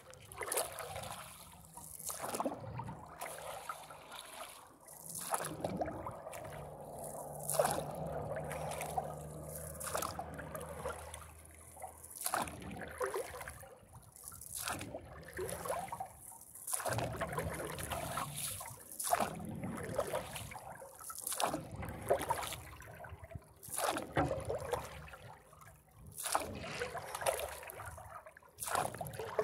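Paddle strokes in lake water from a kneeling stand-up paddleboarder: a splash and trickle roughly every second or so as the blade dips and pulls, over steady water sloshing around the board.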